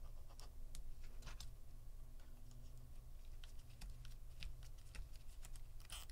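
Faint, irregular small clicks and ticks of a thin pry tool picking at the adhesive pull tab under a MacBook Pro battery cell, over a low steady hum.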